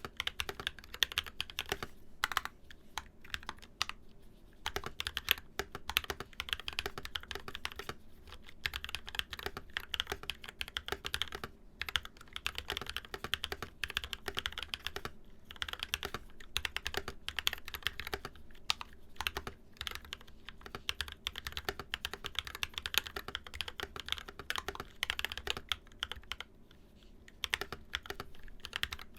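Rapid, continuous typing on an NK65 Entry mechanical keyboard with lubed Zykos tactile frankenswitches (Glorious Panda top and stem, Zealio v2 bottom, 67 g springs) and Infinikey musubi keycaps, the keystrokes coming in quick runs with brief pauses about four, twelve, fifteen and twenty-seven seconds in.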